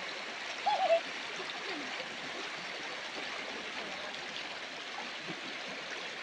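Shallow stream rushing steadily over stones. A short, wavering high-pitched cry stands out briefly just before a second in.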